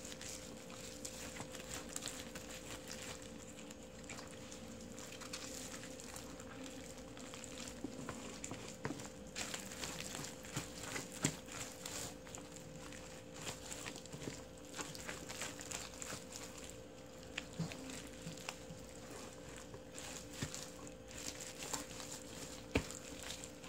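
Gloved hands working seasoning paste into salted napa cabbage for kimchi, giving irregular wet squelches and soft smacks of leaves in the paste, with a few sharper smacks, about eleven seconds in and near the end, over a faint steady hum.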